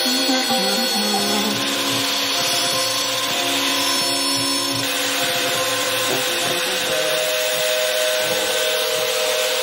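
Table-mounted electric router running steadily while a wooden strip is fed along the fence, the bit cutting a groove along its length.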